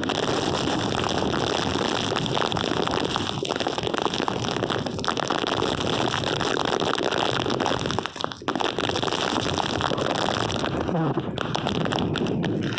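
Hurricane wind and heavy rain, a loud steady rush of noise with brief dips about eight and eleven seconds in.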